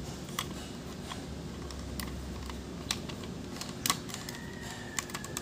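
Light plastic clicks and taps from a Mitsubishi Lancer's dashboard air-conditioning vent louver assembly being handled and its fins worked, a few scattered clicks about a second apart over a faint low hum.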